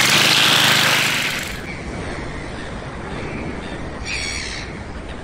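Walk-behind string trimmer's small gas engine running at high speed just after starting. About a second and a half in, the sound drops to a lower, steadier noise, and a short harsh call is heard about four seconds in.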